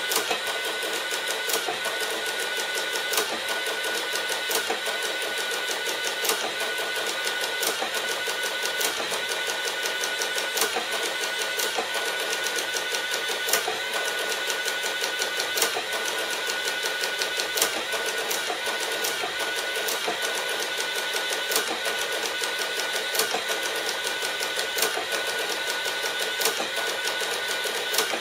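Sharp XE-A107 cash register's built-in printer printing out its programming scan: a continuous mechanical printing noise with a steady whine, and a sharper click about every one and a half to two seconds.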